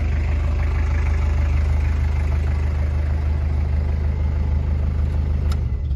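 The 1995 Toyota Land Cruiser KZJ73's 3.0 L 1KZ-T turbo diesel, with its mechanical injection pump and custom side-exit exhaust, idling steadily. There is a single click shortly before the end.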